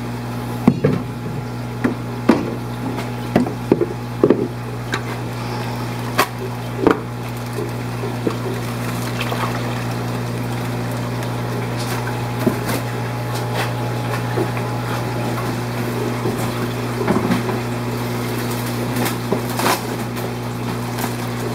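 Steady electric hum and moving water from fish-room aquarium pumps and filtration, with scattered short clicks and knocks, thickest in the first several seconds and again near the end.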